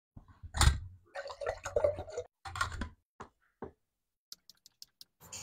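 Handling noise from a Fellow electric gooseneck kettle being touched and moved on its base: uneven rubbing and knocking for about three seconds, then two short clicks, and faint light ticks near the end.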